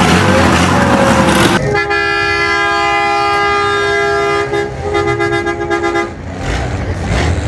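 Off-road buggy engines running, then a vehicle horn blown in one long steady blast of about three seconds, followed by a string of short toots, with engines running again near the end.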